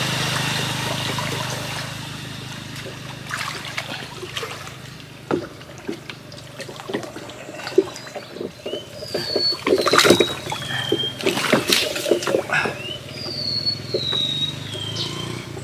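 Water splashing and trickling with many irregular sharp splashes and knocks as hands and legs work through shallow water and a muddy bank hole, after a steady low rush of water at first that fades about two seconds in.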